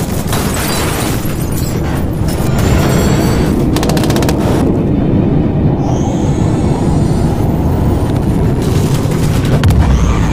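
Action soundtrack: music over a steady low rumble, with several bursts of rapid machine-gun fire.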